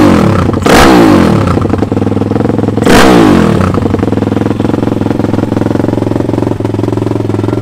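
Pit bike's Daytona four-stroke single engine through an open exhaust with no insert: three quick throttle blips in the first three seconds, each falling back, then a steady idle. The engine is not yet warmed up.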